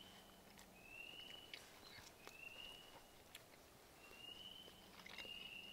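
Faint high calls of a small animal repeating about every second and a half, each a short note rising slightly in pitch, with a few soft clicks in between.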